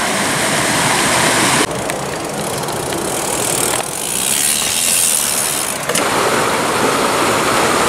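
Steady rushing noise that changes abruptly three times, as from a string of short clips: a stream running, and a mountain bike's tyres rolling over a dirt trail.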